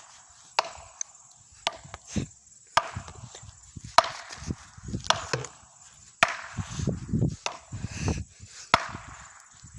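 Repeated hard blows against a tree trunk, about eight sharp strikes roughly a second apart, each followed by a brief rattle of debris.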